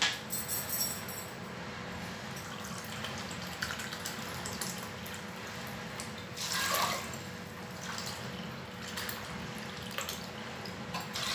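Water pouring from a jug into a plastic measuring cup and into a pressure cooker of soaked white peas, two cups in all, louder for a moment about seven seconds in.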